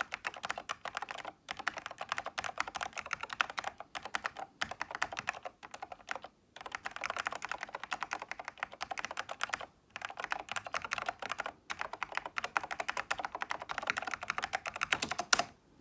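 Fast typing on a Toshiba UE0222P04 keyboard (an OEM Dell 'Big Foot') with ALPS SKCM white switches, in runs of quick keystrokes broken by several short pauses, with one louder stroke just before the end. The uploader believes a previous owner modified the letter keys so that they no longer click.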